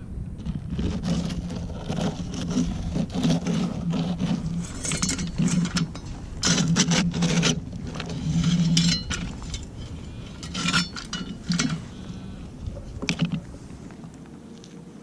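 Digging in dry ground: repeated scrapes and knocks with a few clinks. These come with bursts of a low drone that sets in and stops many times, and all of it dies down near the end.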